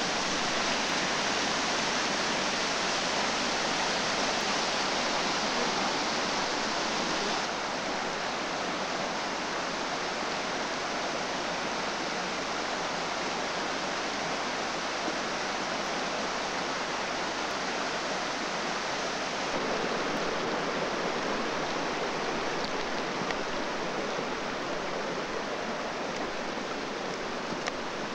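Rocky mountain stream rushing over stones and small cascades: a steady, even rush of water that drops slightly in level about seven seconds in.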